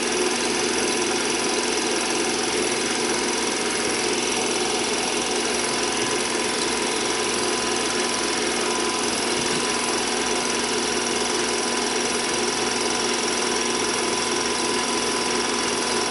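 Home-movie film projector running with a steady mechanical clatter.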